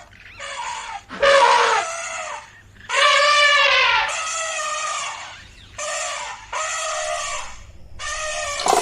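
Elephants trumpeting: a run of about eight high calls with clear harmonics, one after another, the loudest a little over a second in and about three seconds in.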